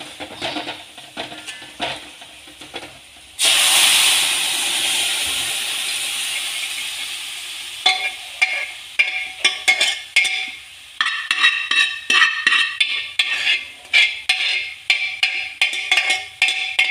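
Pressure-cooked goat head meat with its cooking liquid tipped into hot fried masala: a sudden loud sizzle about three seconds in that slowly dies down. Then a spoon stirring and scraping the pan in quick strokes, about two a second, each with a metallic clink.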